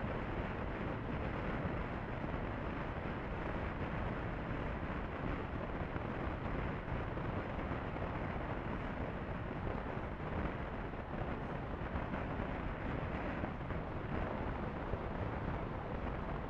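Steady wind rush buffeting the microphone of a motorcycle-mounted camera at highway speed, with the low rumble of the motorcycle and road underneath.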